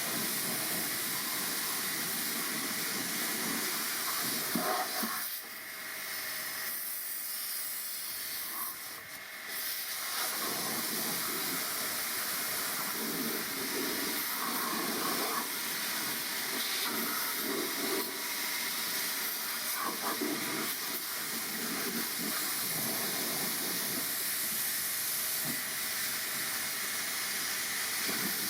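Steady hiss of a pressurised cleaning jet at work on a car's air conditioning system. It drops back for a few seconds after about five seconds in, then resumes at full strength.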